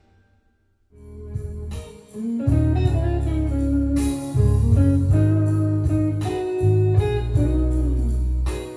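Recorded music played through a Marantz MR 1040 console amplifier. One piece fades out, there is about a second of silence, then a new guitar song comes in with a heavy, steady bass and a regular beat.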